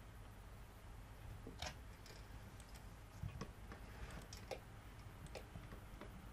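Faint, scattered clicks of a computer mouse, a few over several seconds, over a low steady room hum.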